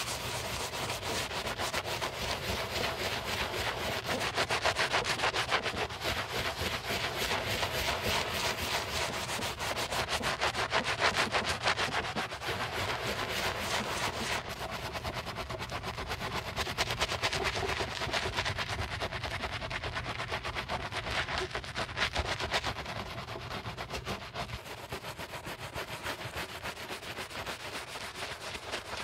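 Wooden-handled shoe-cleaning brush scrubbing a soapy sneaker upper, rapid back-and-forth bristle strokes through the lather and over raised plastic Lego studs.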